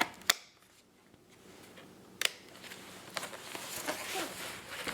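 Sharp plastic clicks and handling as an Asus X54C laptop's battery pack is fitted back into its bay: two distinct snaps, one just after the start and one about two seconds in, then lighter clicking and rubbing.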